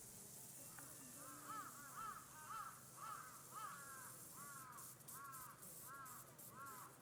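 An animal calling in a rapid series of short, rise-and-fall notes, about two a second, starting about a second in.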